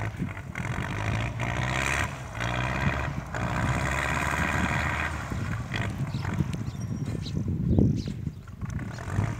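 Distant Belarus tractor diesel engine running steadily at idle, with a rushing noise over it for the first five seconds and a thud a little before the end.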